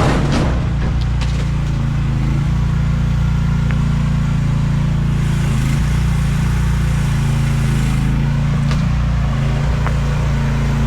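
Chinese mini excavator's engine running steadily at a constant speed.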